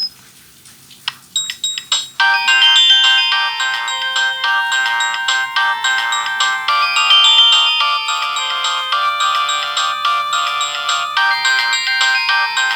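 A few sharp clicks, then a polyphonic Nokia ringtone starting about two seconds in and playing a busy, multi-note melody through a Samsung SGH-A157 flip phone's small speaker.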